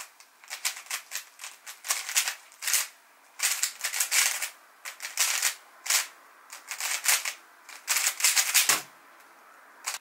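MoYu WRM v9 Maglev 3x3 speedcube being turned fast, its layers clicking and clattering in quick bursts with short pauses between. A single keyboard key tap right at the start and another near the end start and stop the timer.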